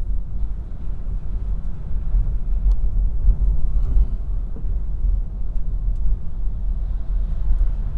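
Steady low rumble inside a moving car's cabin: engine and tyres running on a wet road.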